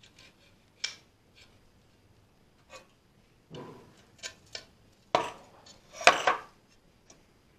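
Stainless steel lever-handle plates and a mortise lock body clicking and clinking against each other as they are fitted together by hand: a few light clicks, then louder metal knocks and clinks in the second half.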